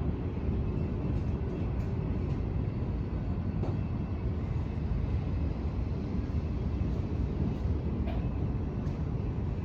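A train passing at length, heard as a steady low rumble.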